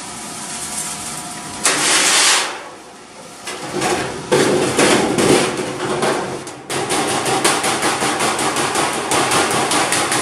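Rapid light hammer taps on sheet metal, starting about two-thirds of the way in: the dovetail tabs of a round take-off collar being hammered flat inside a sheet-metal duct, which tightens the fitting and cuts air leakage. Before that, a few louder noises of the ductwork being handled.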